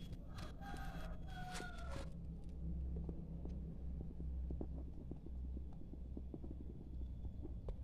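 Red junglefowl rooster pecking grain off bare soil: a string of quick, light taps over a steady low rumble. Two brief pitched notes sound in the first couple of seconds.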